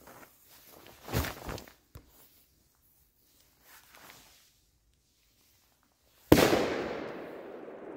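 A Mamba 2 firecracker going off with one sharp bang about six seconds in, followed by a long echoing decay. A few softer noises come before it, about a second in.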